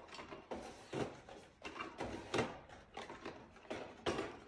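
Vending packs being loaded into the columns of a mechanical vending machine: a run of irregular light knocks, clicks and rustles, one every half second or so, as each pack is slotted in.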